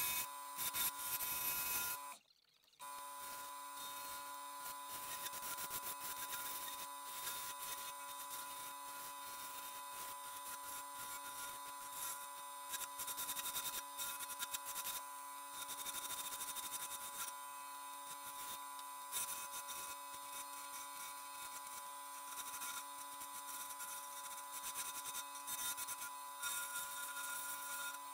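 Small wood lathe running with a steady motor hum while a hand-held turning tool scrapes and cuts a spinning ash finial, the cutting hiss swelling and easing as the tool works. The sound drops out briefly about two seconds in.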